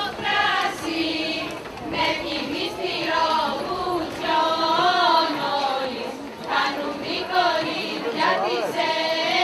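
A group of women singing a slow Easter dance song in unison, with long held notes that waver in pitch.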